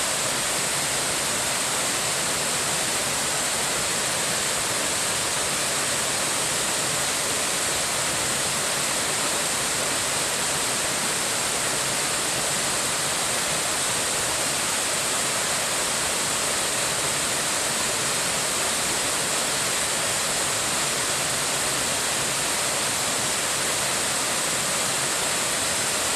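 Waterfall rushing steadily, a constant full-bodied roar of falling water swollen by recent heavy rain.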